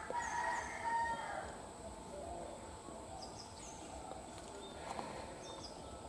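Bird calls: one louder call in the first second and a half, then short high chirps from small birds every so often.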